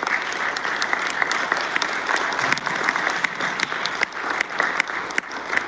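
Audience applauding steadily, with single sharp claps standing out from the mass of clapping.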